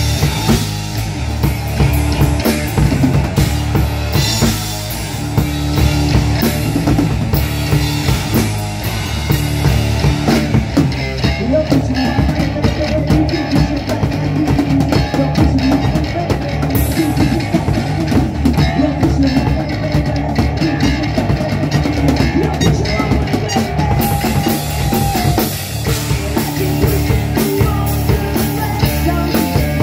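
Live rock band playing loud and steady: a drum kit pounding out a driving beat over electric bass guitar.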